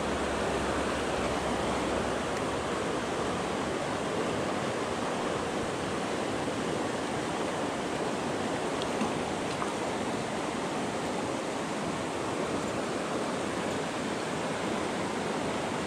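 Fast, shallow mountain river rushing over rocks and riffles: a steady, even rush of water.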